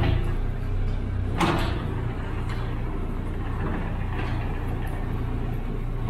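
Mini excavator engine running steadily while its bucket spreads straw from an unrolled round bale, with one sharp knock about a second and a half in.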